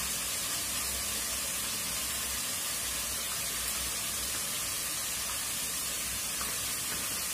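Onion, garlic and tomato masala paste with turmeric and chilli powder frying in oil in a steel wok, giving a steady, even sizzle.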